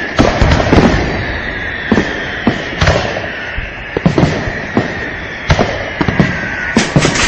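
Fireworks going off: a rapid, irregular string of sharp bangs over a steady high whistle, with a denser, brighter crackling burst near the end.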